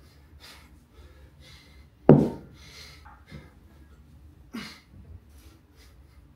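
A single loud thud about two seconds in, from a 100-pound kettlebell hitting the concrete floor, followed by a couple of lighter knocks. Hard breathing runs throughout, one sharp breath about every second, with the swings.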